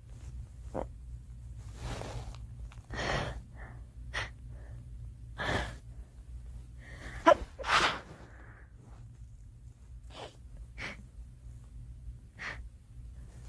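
A girl sneezing again and again, with gasping in-breaths between the sneezes. The loudest sneezes come about seven to eight seconds in.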